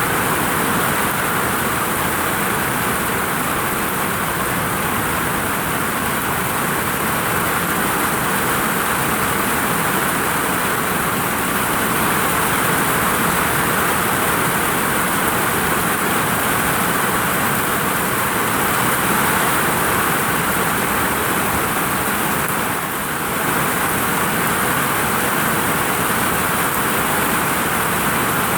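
Heavy rain pouring onto a vinyl roof: a steady, dense hiss that dips briefly once, near the end.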